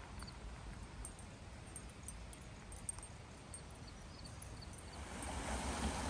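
Low, steady rumble of wind on a phone microphone with a few faint high chirps. About five seconds in, the steady rush of a small brook over rocks comes in and grows louder.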